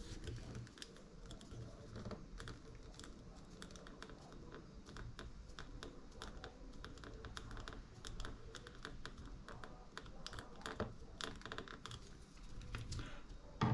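Faint, rapid, irregular clicking and ticking from small plastic and metal model-kit parts and screws being handled and fitted.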